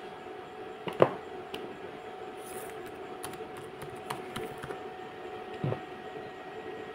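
Computer keyboard keystrokes: a few scattered clicks as a search is typed, the loudest about a second in, over a faint steady hum.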